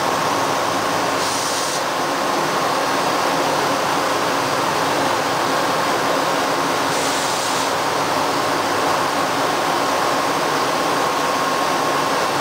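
Steady rushing of water flooding up into a Panama Canal lock chamber, the surface churning as the chamber fills, under a faint steady whine. A brief higher hiss comes in twice, about a second in and about seven seconds in.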